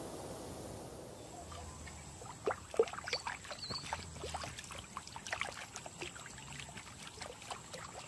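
Small, irregular splashes and trickles of shallow water as a lapwing wades and bathes.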